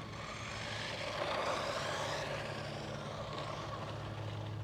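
1:16 RC monster truck's 390 brushed electric motor whining as it drives on asphalt, with tyre noise, swelling louder about a second in and easing off after.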